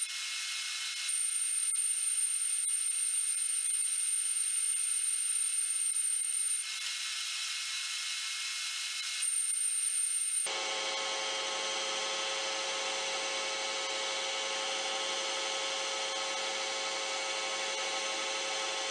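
Metal lathe running with a small steel workpiece spinning in the chuck, and a high thin whine that starts about a second in, drops out after about five seconds and returns shortly before the change. About halfway through, the sound switches abruptly to a steadier, lower machine hum.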